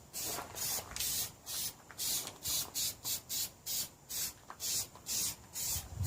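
Aerosol spray-paint can sprayed in short, rapid bursts of hiss, about three a second.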